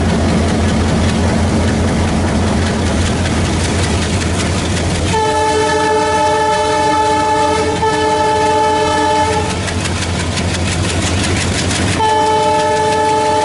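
ALCO WDG-3A diesel locomotive's 16-cylinder engine chugging in a steady low rhythm, then its multi-note horn sounds, held about four seconds from about five seconds in, and again near the end.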